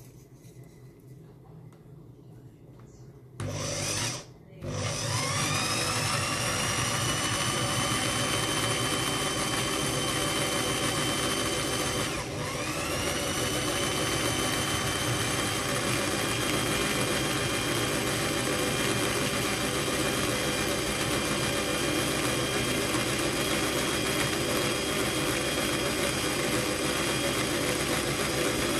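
Old Bosch variable-speed electric drill, started with a short burst about three and a half seconds in, stopped for a moment, then spun up with a rising whine that levels off into steady running at low speed as it turns a copper wire core to wind thin copper wire onto it. About twelve seconds in its speed dips briefly and picks back up.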